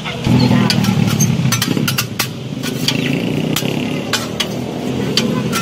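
Metal scraper and utensils clicking and clinking against a flat-top steel griddle, a rapid scatter of sharp taps, over a steady low rumble.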